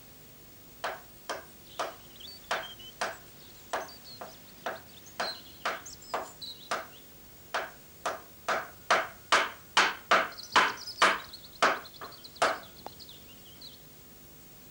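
A hammer striking wood, about two dozen blows at roughly two a second, louder in the second half, stopping about a second before the end.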